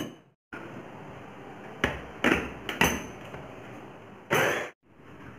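A steel spoon clinking and knocking against a glass bowl while soaked chickpeas are scooped out: three sharp clinks about two seconds in, then a short louder rattle near the end.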